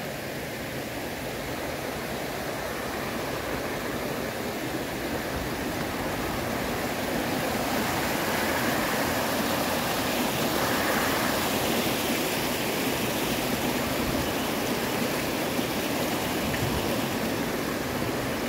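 Steady rush of flowing water, growing a little louder about halfway through.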